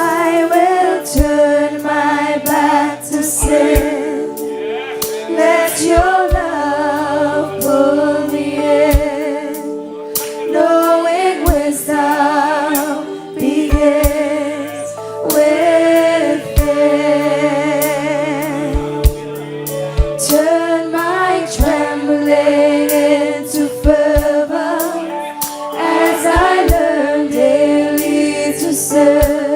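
Women singing a gospel song in harmony, voices with vibrato, over sustained instrumental chords and sharp percussive beats.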